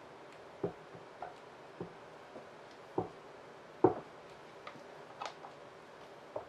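Light, irregular taps and clicks of a clear plastic cup being handled over a resin-coated ball, about seven over several seconds, with one sharper click about four seconds in.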